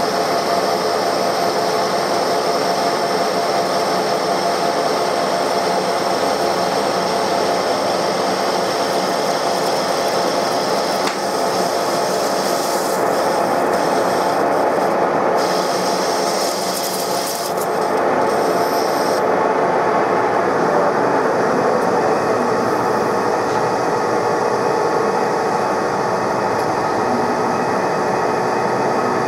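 Metal lathe running with its indexable insert taking a turning cut on a metal wheel hub: a steady hiss of the cut over the hum of the lathe's drive. About two-thirds of the way through the high hiss of the cut stops, while the lathe keeps running.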